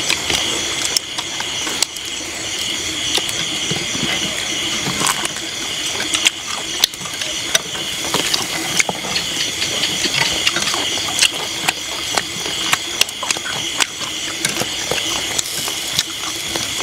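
Steady high chirring of night insects, pulsing evenly, with many short sharp clicks and knocks scattered through it.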